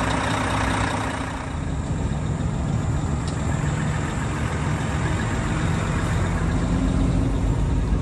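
A heavy truck's diesel engine idling steadily with a low, even hum.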